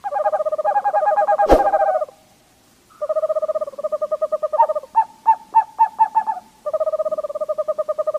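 Screech owl calling: rapid trilled hoots in runs of a second or two, broken in the middle by a series of separate short notes. A single sharp click about one and a half seconds in.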